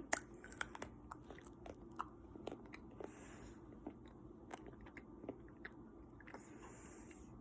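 A person biting and chewing a piece of chocolate bar close to the microphone: faint, scattered crunches and small mouth clicks.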